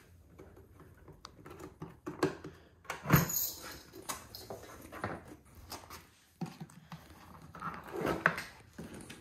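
Hard plastic tool cases being handled: a small plastic organizer box is lifted off a stacked case and set down, with scattered knocks, clicks and clatter. The sharpest knock comes about three seconds in.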